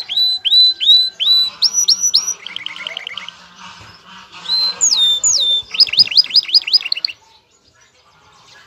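Male domestic canary singing its courtship song in repeated phrases. A string of rising whistled notes comes about two a second, then higher notes, a fast trill, falling glides and a quick run of notes. The song breaks off about seven seconds in.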